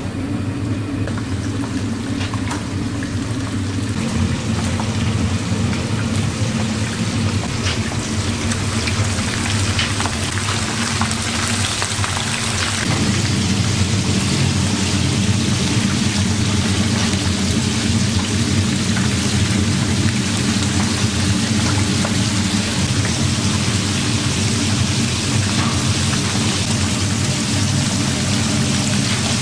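Food sizzling in a hot pan, a steady hiss over a constant low machine hum; both get louder about 13 seconds in.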